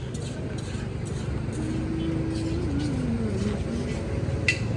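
Street noise at a busy intersection: a steady low rumble of traffic, with a drawn-out held tone about halfway through that wavers downward, and a sharp click near the end.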